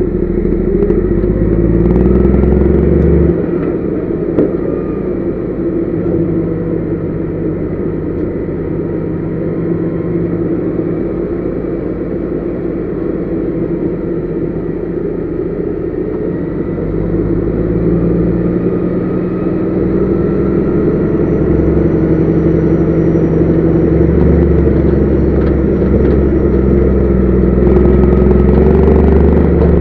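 Heavy truck's diesel engine running under load, heard from inside the cab. It eases off about three seconds in and builds up louder again from about halfway through.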